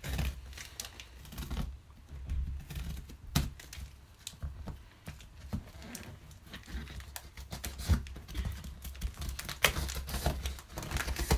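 Parcel packaging being torn and cut open by hand, with plastic wrapping crinkling and rustling and irregular sharp clicks.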